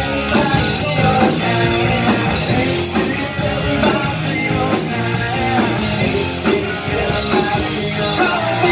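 A live rock band playing: distorted electric guitars, electric bass and drum kit, with a steady beat.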